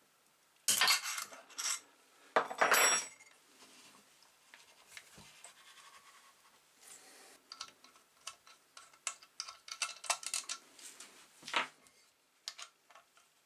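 Metal tools and loose engine parts clinking, rattling and scraping against a Briggs & Stratton Quantum engine's opened crankcase during hand disassembly. Two louder rattles come in the first three seconds, then a run of small sharp clicks.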